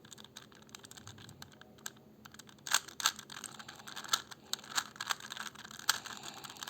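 Rubik's cube being turned by hand: quick, irregular clicks of its plastic layers, sparse at first and then louder and busier from about two and a half seconds in.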